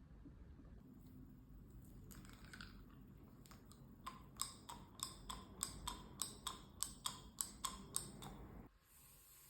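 A run of short, light clicks, roughly three a second and slightly uneven, over a faint low hum; the clicks start about four seconds in and the hum stops shortly before the end.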